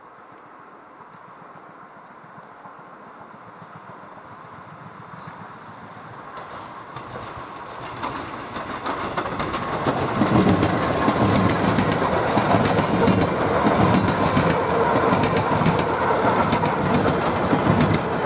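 Suburban electric multiple unit approaching, growing steadily louder, then passing close from about ten seconds in with a loud, rhythmic clatter of wheels over the rails.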